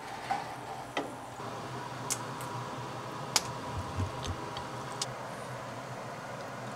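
Scattered light clicks and clinks of kitchenware: a glass baking dish handled on a toaster oven's wire rack, then a spatula knocking against a porcelain plate as a hamburger steak is set down, with a faint steady hum underneath.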